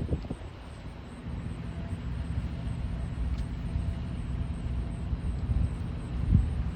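Airbus A321neo jet airliner landing, a low rumble that grows louder about a second and a half in.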